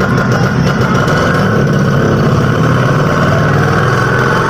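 Auto-rickshaw (bajaj) engine running steadily at idle with a fast, even chugging.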